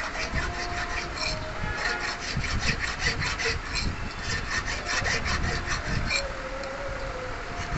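Hand file scraping over the edges of a small sand-cast metal frame in quick, uneven back-and-forth strokes, finishing off the rough casting; the strokes thin out about six seconds in.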